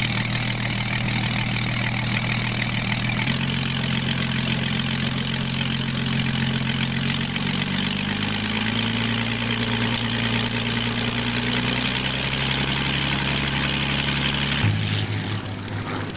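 Piston aero engine of a WWII fighter idling on the ground: a steady, low running note whose pitch shifts slightly a few times and changes abruptly near the end.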